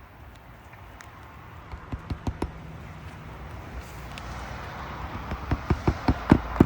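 A series of sharp knocks on a shingle roof: four close together about two seconds in, then a quicker run that gets louder toward the end.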